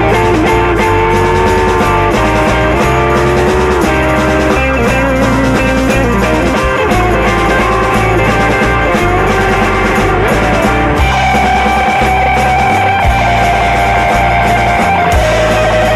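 Psychedelic rock band playing an instrumental passage without vocals: held lead notes that bend and step in pitch over a steady, driving bass and drums.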